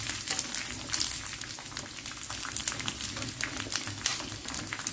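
Sun-dried pork skin deep-frying in hot oil in a wok: a steady sizzle with many small crackling pops, as the pieces puff up into pork cracklings.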